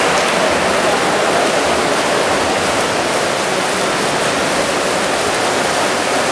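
Steady rushing splash of water churned by a pack of water polo players swimming hard freestyle across the pool.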